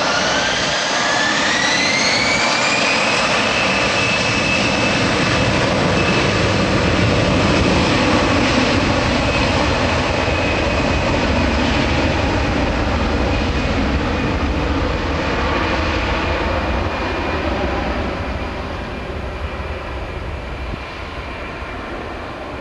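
Airbus A320-211's CFM56 jet engines spooling up for takeoff: a whine rising in pitch over the first three seconds, then holding steady over a loud, even roar. The roar fades gradually over the last few seconds as the airliner rolls away down the runway.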